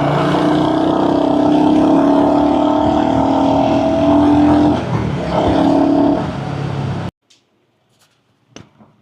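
Royal Enfield Hunter 350's single-cylinder engine pulling under throttle while riding, a steady drone that rises slowly in pitch, with a brief dip about five seconds in. The sound cuts off abruptly about seven seconds in, leaving near silence with a few faint clicks.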